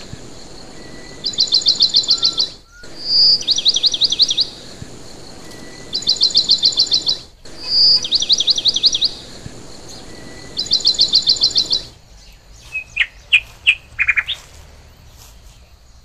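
A songbird singing two alternating high-pitched phrases over and over, each about a second and a half long. One is a clear whistle running into a quick trill of about eight notes; the other is a rapid run of about eight sharp notes. The song stops abruptly about twelve seconds in, leaving a few short, lower chirps.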